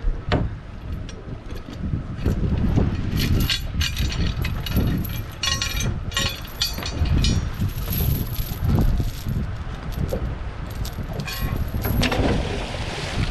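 Boat's anchor chain and line being pulled from the bow anchor locker: a knock at the start, then metal clinking and rattling in spells through the middle, over wind buffeting the microphone.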